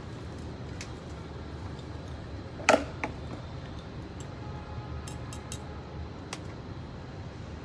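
Light clinks and taps of a metal spoon against a glass, with one louder knock about a third of the way in, over a steady low rumble.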